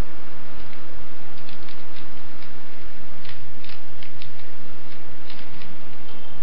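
Plastic Rubik's cube layers being turned by hand, giving quick irregular clicks and clacks over a steady hiss.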